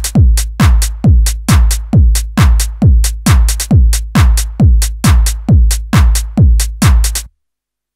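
Electronic house music on a steady four-on-the-floor drum-machine beat, about two kicks a second, each kick a deep thud that falls in pitch, with short hi-hat ticks between. The track cuts off suddenly near the end.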